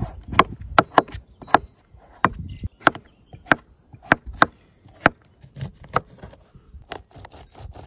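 Kitchen knife chopping melon on a plastic cutting mat over a wooden board: a string of sharp, irregular knocks as the blade strikes the board, about one to two a second, coming closer together near the end as a lemon is cut.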